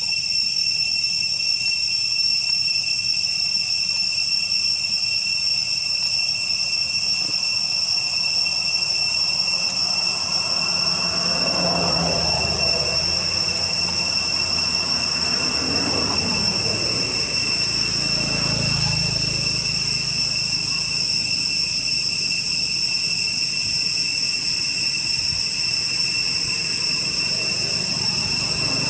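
A steady, unbroken insect chorus of crickets or cicadas, with several high ringing tones at an even level. Fainter, rougher sounds come and go around the middle.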